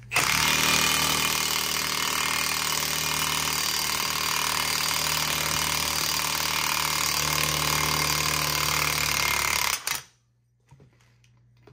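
Cordless impact wrench hammering steadily on the screw of a ball joint press, forcing the upper ball joint out of a Ford Super Duty steering knuckle. It runs for nearly ten seconds and cuts off suddenly.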